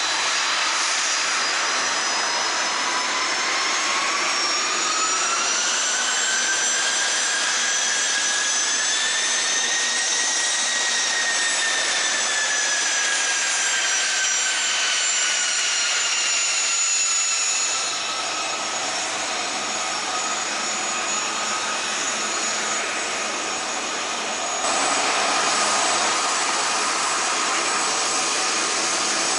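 Canadair CRJ-200 regional jet's General Electric CF34 turbofans running on the ground: a steady roar with a high whine that climbs in pitch over the first ten seconds or so and then slowly falls again. The sound shifts abruptly twice in the second half.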